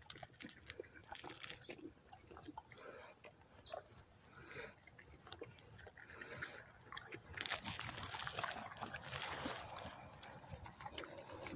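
Dogs chewing and tearing at grass: scattered small crunches and clicks, with a louder rustling hiss for about two seconds after the middle.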